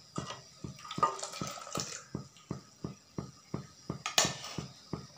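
Steel ladle stirring milk in a clay pot, the liquid swishing for the first two seconds, with a sharp clack about four seconds in. Beneath it, a steady ticking about three times a second.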